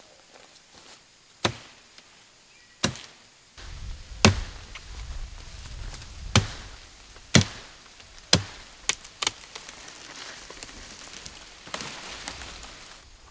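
Machete blade chopping into a green sapling trunk: a series of sharp chops at irregular intervals, about a second apart, the hardest ones about four and seven seconds in.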